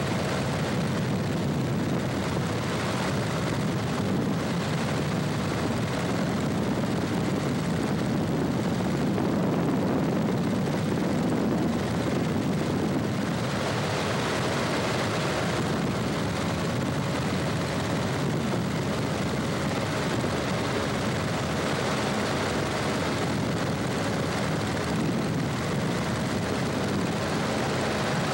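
A 1966 Cessna 150's four-cylinder Continental O-200 engine and propeller running steadily in level flight, heard from inside the cabin as an even drone with a rush of air over the airframe.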